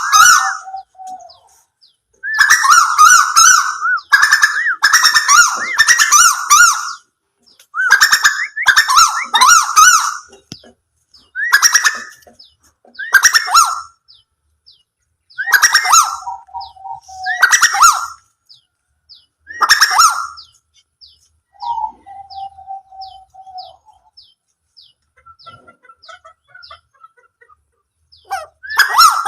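Asian koel (tuwu) calling: loud bouts of rapid, harsh notes, each about a second long, repeated about a dozen times with short gaps, falling quiet for a few seconds after about 21 s and starting again near the end. The tags point to the female's calls.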